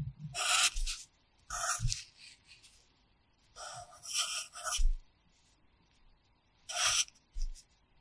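Pencil scratching on paper in a series of short strokes, writing Japanese hiragana characters in a practice workbook, with soft low knocks of the notebook against the pad beneath it.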